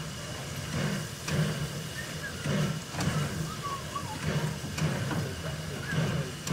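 J15 0-6-0 steam locomotive standing in steam, with a low, uneven throb about twice a second and a few light clicks.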